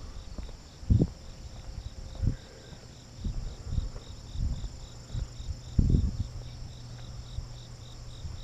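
A cricket chirping steadily in high, even pulses a few times a second, with several low thumps of footsteps while walking, the loudest about a second in and around six seconds in.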